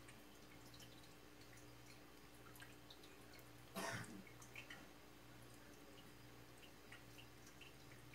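Near silence with a low steady hum, and faint small clicks and squishes of fingers pressing cubes of cheese into a green bell pepper. One brief louder knock about four seconds in.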